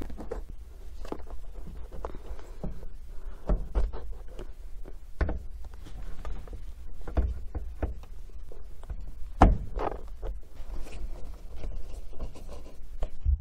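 Irregular knocks, clicks and thuds of a sun visor being handled and fitted to the cab roof, its mounting screw driven in with a hand screwdriver. The loudest knock comes about halfway through.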